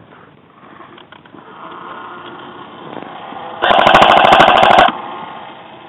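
Airsoft gun firing one full-auto burst of about a second, a rapid, even rattle of shots about three and a half seconds in, over a fainter steady buzz that builds beforehand.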